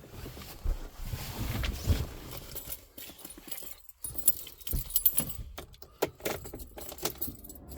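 Keys jangling, with scattered knocks, clicks and rustling of someone climbing into a van's driver seat.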